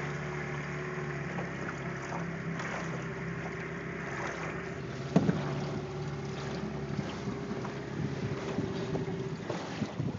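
9.9 hp Suzuki oil-injected outboard motor idling with a steady note, under wind noise on the microphone. A single sharp knock comes about five seconds in, and the engine note fades out near the end.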